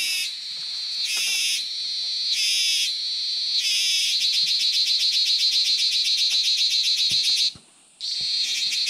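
Tropical rainforest cicadas calling loudly. First comes a series of short buzzing calls about a second apart; from about four seconds in there is a continuous fast-pulsing buzz, which cuts out briefly near the end and then returns.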